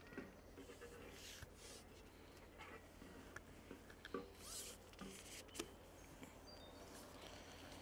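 Near silence, with a few faint clicks and brief rustles.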